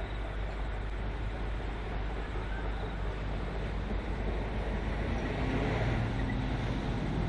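V/Line VLocity diesel railcar running in the distance: a steady rumbling hum that grows a little louder, with an engine tone, in the last few seconds.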